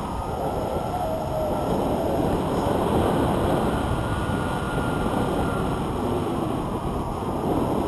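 Wind noise from the airflow of a tandem paraglider in flight, buffeting a handheld camera's microphone in a steady, low-heavy rush.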